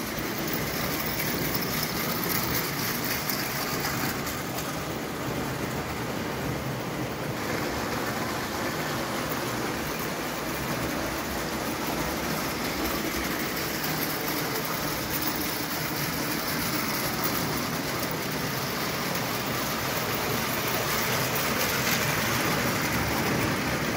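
O gauge tinplate model trains running on metal track, a steady rattle and rumble of wheels on the rails, louder near the end as coaches pass close.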